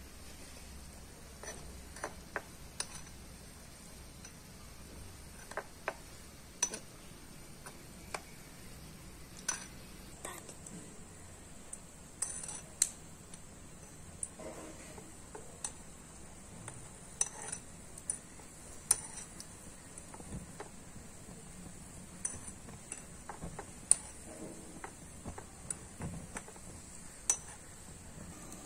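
A small metal spoon tapping and scraping against a miniature aluminium pot in scattered light clicks, as gulab jamun balls are turned in the hot oil, over a faint steady hiss.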